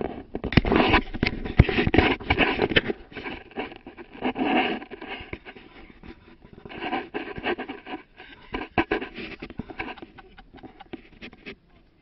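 Scraping, rustling and knocking from hands rummaging inside a car, in irregular bursts with sharp clicks, loudest in the first few seconds and thinning out toward the end.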